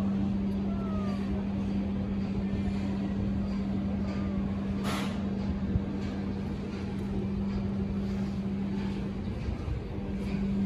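Steady low mechanical hum over a background rumble like motor traffic or machinery, with a short sharp hiss about five seconds in.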